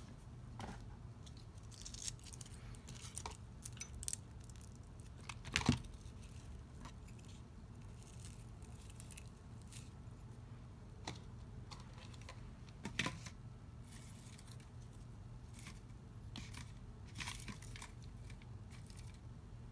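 Paper-craft handling noises: scattered rustles and light clicks of paper flowers and card being picked up and placed, with the sharpest knocks about six and thirteen seconds in, over a faint steady low hum.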